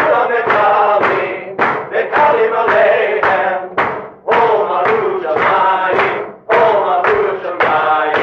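Voices singing a song or chant in short phrases, with brief breaths between phrases.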